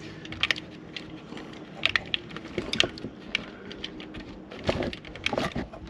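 Irregular small clicks and metallic taps of hands fitting a bolt through an ignition coil's mounting bracket, over a faint steady hum.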